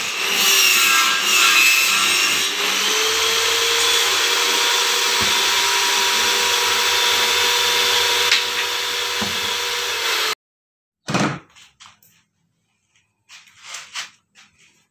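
Bench-mounted table saw ripping a strip of HPL-laminated board. Its pitch wavers for the first couple of seconds, then it settles into a steady whine. The sound cuts off suddenly about ten seconds in, and a few faint knocks follow.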